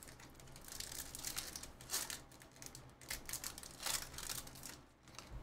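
Foil wrapper of a trading-card pack being torn open and peeled back, crinkling in several bursts, the loudest about two and four seconds in.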